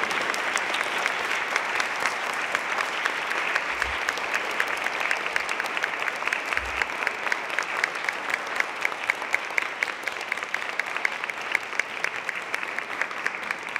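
Audience applauding: a dense round of clapping that thins somewhat in the second half, with individual claps standing out more clearly.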